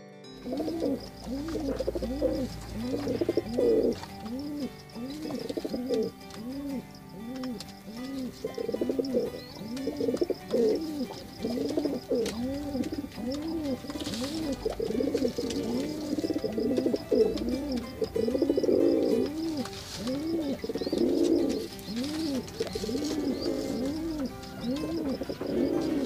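Domestic pigeons cooing: a steady run of low, rising-and-falling coos, about two a second, without a break.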